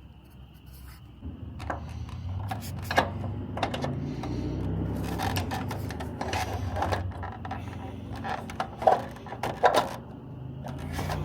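Clicks, knocks and scraping of a propane quick-connect hose fitting being handled and pushed onto the quick-connect inlet of a Mr. Heater Big Buddy heater, with the loudest clicks near the end.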